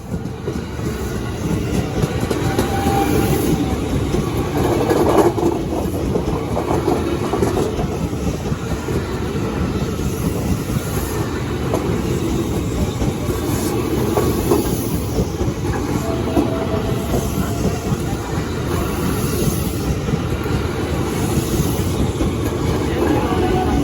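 A train passing close by, its wheels running loudly and steadily on the rails.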